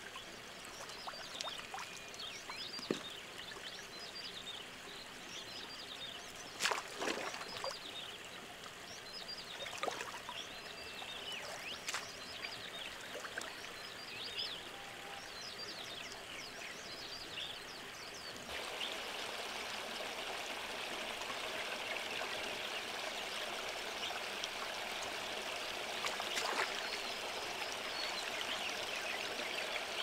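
Shallow stream water sloshing and trickling around a person wading through it, with a few sharp splashes. About 18 seconds in, the water noise becomes louder and denser.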